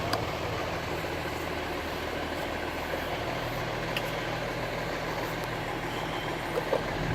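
Fire engine idling, a steady low hum.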